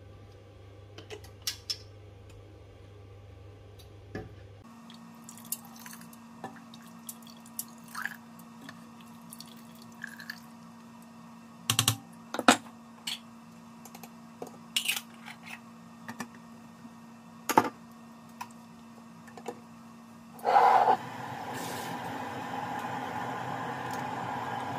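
Glass jars and a metal ladle clinking and knocking against a stainless steel stockpot, with water dripping. Near the end a louder burst turns into a steady rushing noise.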